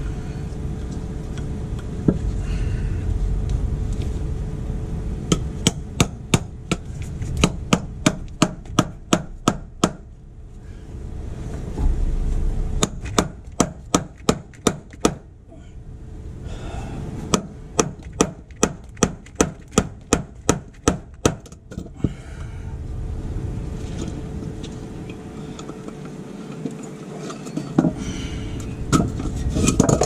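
Engineer hammer striking an impact lug crimper mounted on a wooden block, crimping a butt splice onto a heavy battery cable: three runs of sharp blows at about three a second, with short pauses between runs and a few single knocks.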